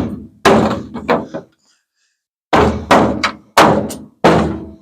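Heavy hammer blows on the dented front sheet metal of a 1950 Ford F1, struck from underneath to knock the dent out. A few hard hits, a pause of about a second, then four more in quick succession, each a sharp thunk with a short ring.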